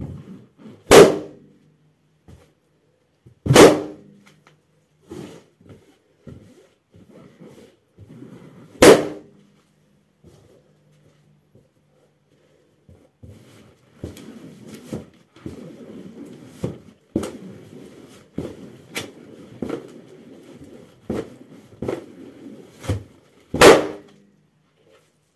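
Latex balloons stomped on with sock-clad feet, bursting with four loud pops: about a second in, again at about four and nine seconds, and once more near the end. Before the last pop comes a long stretch of rubbery rubbing and squeaking with small ticks as a balloon is pressed and rolled underfoot.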